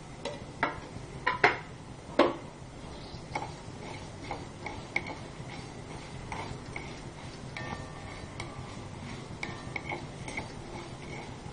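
Wooden spatula stirring whole spices as they dry-roast in a metal kadai: irregular clicks and scrapes on the pan and the rattle of seeds. There are a few sharper knocks in the first couple of seconds, then lighter ticks, over a low steady hum.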